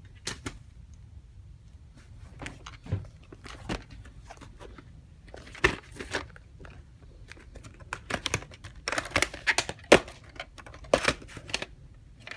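Hands handling a white plastic clamshell VHS case and its cassette: irregular clicks, knocks and rustling as the case is turned over and opened and the tape taken out, with the sharpest knock about ten seconds in.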